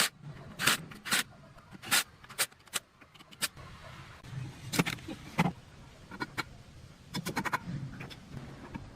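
Irregular sharp knocks and clicks, with a quick run of rapid taps a little after seven seconds in.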